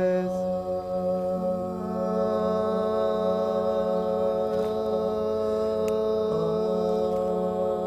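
Several men's voices hold a sustained chord a cappella in layered parts: a low bass drone under a harmony and an upper-octave line. Another part joins about a second and a half in, and the chord then holds steady.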